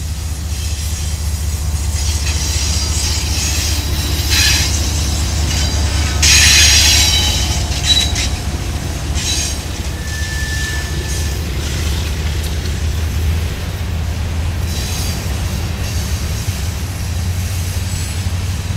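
Empty covered-hopper grain train rolling past with a steady low rumble, its wheels squealing in high-pitched bursts, loudest about six to seven seconds in.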